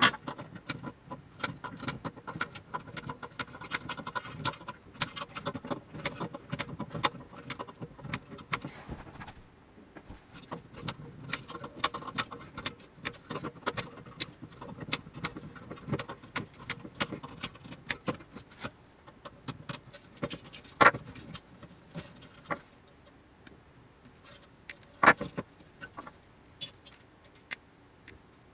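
Tools and small metal parts clicking and clinking as connectors and wiring are cut and pulled out of an electronics enclosure, rapid and busy at first, then a few scattered sharper clicks.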